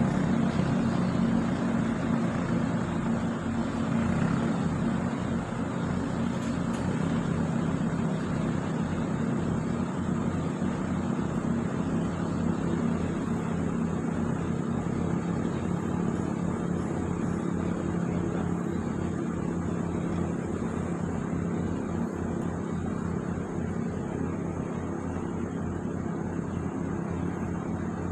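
A small engine running at a steady speed throughout, with an even hum and no change in pitch.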